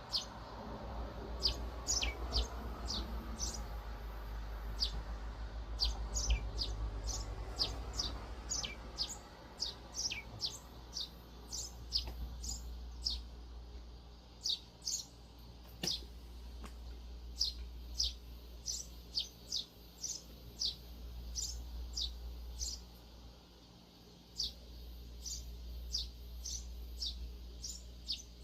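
Eurasian tree sparrows chirping: a steady stream of short, high, down-slurred chirps, several each second, over a low background rumble.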